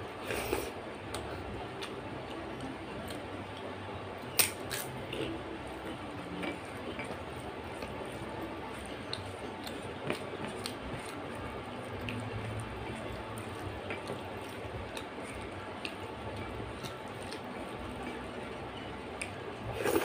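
Eating rice and dal by hand: wet chewing and mouth sounds, fingers squishing and mixing rice on the plate, with a few short sharp clicks, the loudest about four seconds in, over a steady low hum.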